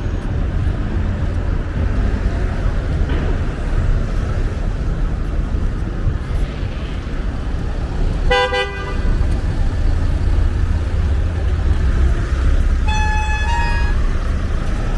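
Steady city street traffic rumble, with a vehicle horn giving one short toot about eight seconds in and a second, higher-pitched two-step toot near the end.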